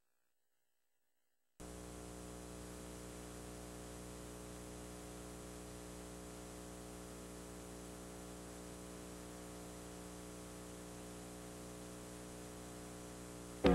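Dead air on a television broadcast: total silence for about a second and a half, then a steady electrical hum with faint hiss on the empty audio feed.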